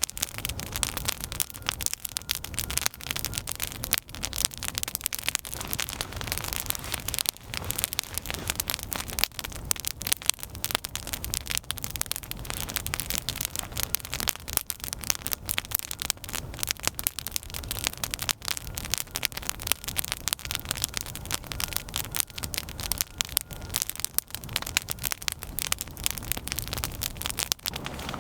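Wood campfire crackling steadily, thick with sharp clicks and pops, over a low rumble.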